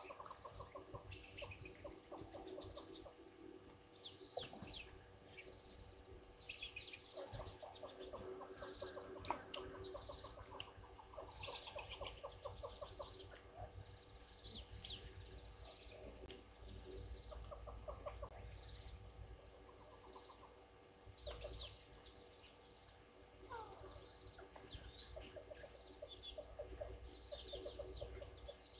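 Bushveld ambience: several small birds chirping and trilling over a steady, high-pitched insect drone.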